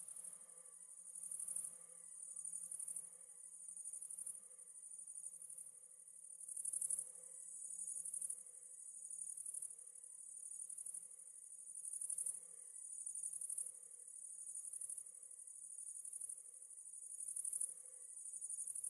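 A chorus of crickets chirping in a continuous high-pitched trill. It swells and fades in a steady rhythm, a little more than once a second.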